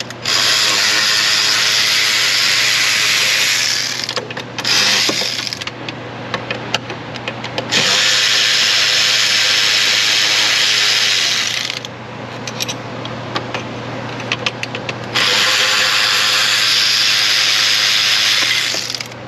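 Cordless electric ratchet running in repeated runs of a few seconds each, backing out the throttle body mounting bolts, with rapid clicking between the runs.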